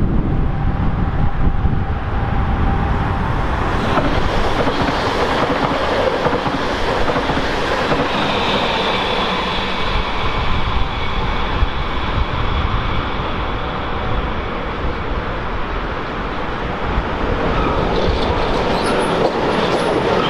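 A train running along the track, with a steady rumble and rush of wheels on rail. About eight seconds in, a high metallic squeal joins it for several seconds, then fades.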